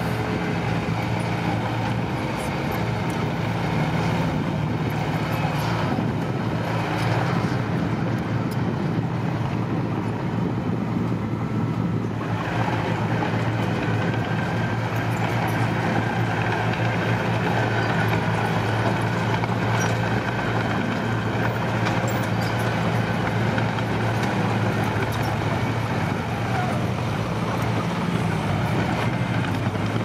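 Diesel engines running with a steady drone: a small crawler bulldozer pushing soil among dump trucks, with a few faint clanks now and then.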